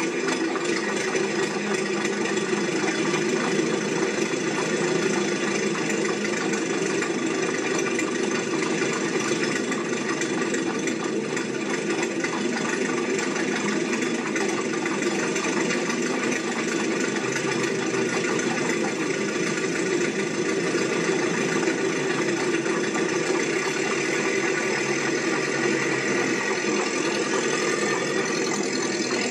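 A steady mechanical running noise, an even hum of machinery that holds unchanged throughout.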